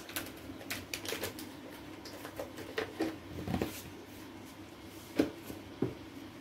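Scattered light clicks, taps and rustles of hand handling as spice powder is added to raw chicken legs in a plastic bowl, with a few sharper taps in the second half. A faint steady hum runs underneath.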